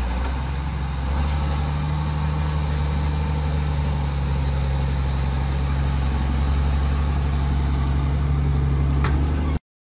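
Motor grader's diesel engine running steadily with a low drone as the grader drives forward; the engine note steps up slightly about a second in. The sound cuts off abruptly near the end.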